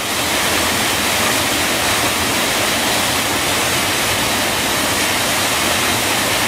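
River whitewater rushing over large rock boulders in a small waterfall: a loud, steady, unbroken rushing noise.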